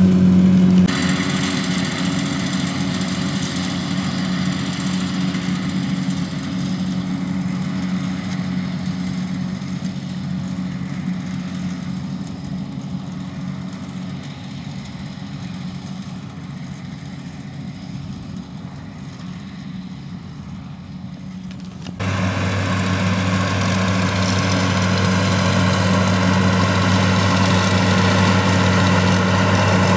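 Tractor diesel engines running steadily while pulling grass mowers through a field. The sound changes abruptly about a second in and again about 22 seconds in; the last part is a Massey Ferguson 399 running louder with a strong, steady low hum.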